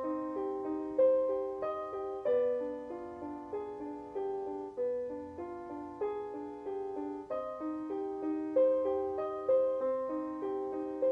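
Piano music: slow, gentle notes struck in a repeating pattern, each one fading after it is played.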